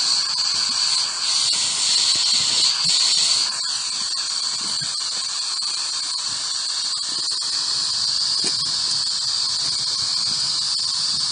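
Ghost Radio spirit-box app putting out steady static hiss with a high, even whine over it.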